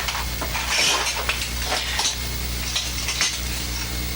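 Irregular clinking and rattling of objects being handled, over a steady low hum.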